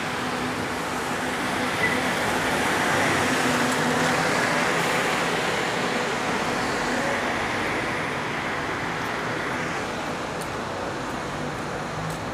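Steady city street traffic noise, swelling for a few seconds near the start as traffic passes.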